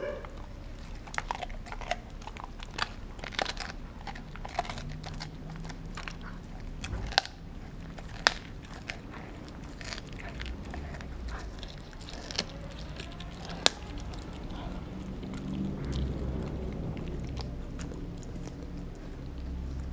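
Mixed-breed dog chewing and gnawing a frozen raw turkey steak: irregular wet crunching with a few sharp cracks as its teeth bite into the frozen meat.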